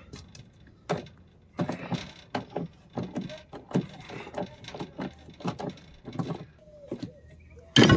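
Irregular metallic clicks and clinks of a ratchet wrench and 17 mm socket as a nut is backed off its bolt, roughly two a second, with a louder knock at the very end.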